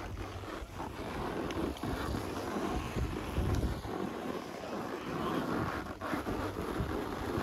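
Wind buffeting the microphone: a gusty rush with low rumbling that rises and falls throughout.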